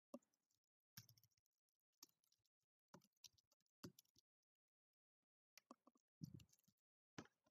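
Faint typing on a computer keyboard: short clusters of key clicks, about one cluster a second.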